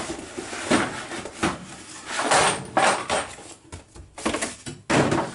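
Unpacking: a cardboard box and plastic bags of small construction parts being handled and rummaged through, a run of irregular rustles, scrapes and knocks.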